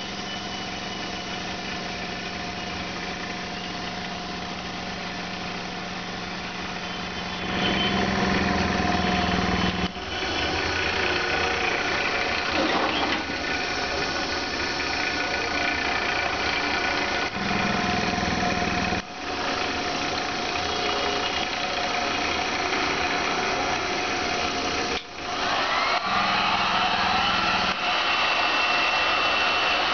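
A small electric motor or blower running steadily with a hum, getting louder about a quarter of the way in and dipping briefly three times.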